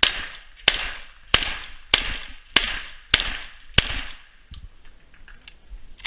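Shotgun fired seven times in steady rapid succession, a shot about every 0.6 seconds, each with a short echoing tail. After the last shot, about four seconds in, only a few faint clicks follow.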